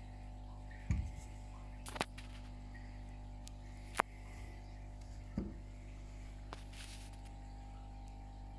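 A few short knocks and clicks of small plastic items being handled and set down on a tabletop, over a steady low electrical hum.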